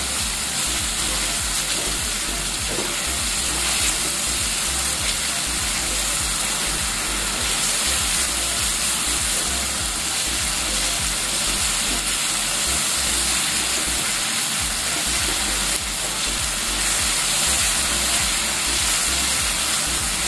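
Blended chili-turmeric spice paste sizzling steadily in oil in a nonstick frying pan, stirred and scraped with a silicone spatula as it is sautéed until fragrant.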